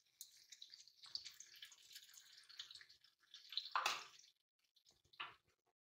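Lemon juice poured from a jug into a hot karahi over frying chicken pieces: a faint crackling, dripping pour, ending in a louder short splash about four seconds in and a smaller one a second later.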